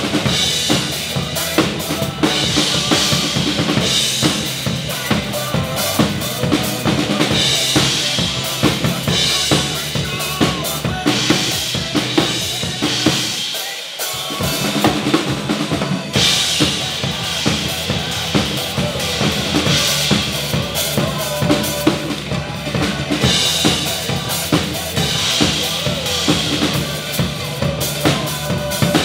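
Acoustic drum kit played live, kick and snare driving a fast rock beat along with the backing track of a pop-rock song. Near the middle the low end drops out for a brief break before the beat comes back in.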